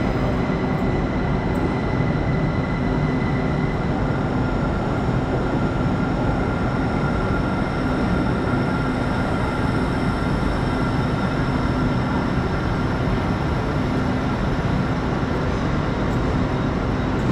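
Heathrow Express Class 387 electric multiple unit rolling slowly into the platform: a steady rumble and hum from the train, with several held whining tones from its traction equipment.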